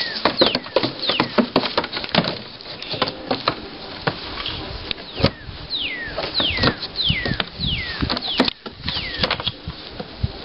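Pygmy goat kids' hooves clattering and knocking on a propped-up wooden door as they climb and butt heads on it, with many irregular sharp knocks. Short high whistles sliding down in pitch repeat in clusters near the start and again after about six seconds: birds calling in the background.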